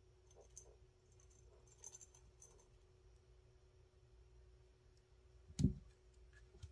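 Quiet room with a few faint light clicks and scratches as a kitten paws at a pompom toy hanging from a cat tree, then a single dull thump near the end.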